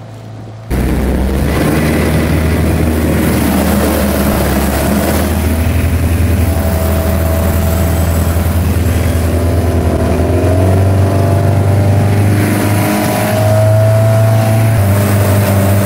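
Mercruiser 3.0 inline-four sterndrive engine running at speed, heard from aboard the boat, with wind and rushing wake water over a steady low engine hum. Less than a second in, the sound cuts in suddenly loud; it grows a little louder again near the end.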